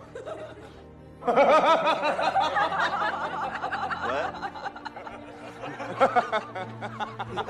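A man laughing in a quick, wavering giggle for about three seconds, starting about a second in, over background music.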